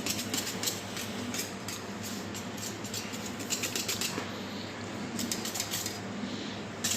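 Electric mixer running at high speed, beating a thin qatayef batter of flour, semolina, yeast and water, with a steady motor hum and a fast irregular ticking.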